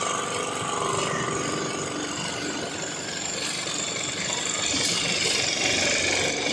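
A motor engine running steadily amid busy street noise.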